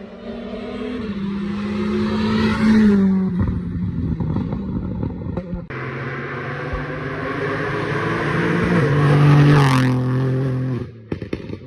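Rally cars at full throttle approaching and passing close by, two separate passes. The engine note holds and then steps down at each gear change. The second car sweeps past about ten seconds in with a sharp drop in pitch.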